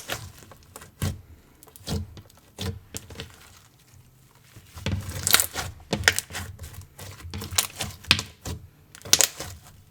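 Slime being squeezed and poked by hand, making irregular sticky clicks and pops in uneven clusters, busiest in the second half.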